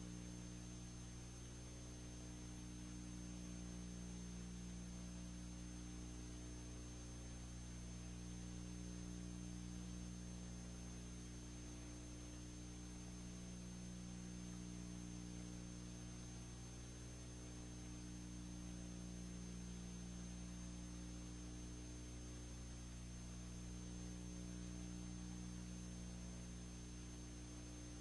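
Steady electrical mains hum with an even hiss and a thin, faint high whine, unchanging throughout: the bare noise floor of a silent film's audio track with no sound recorded on it.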